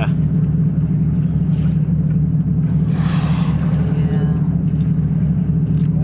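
Dive boat's engine running with a steady, low pulsing hum, heard on deck. About three seconds in, a brief rushing hiss rises over it and fades within about a second.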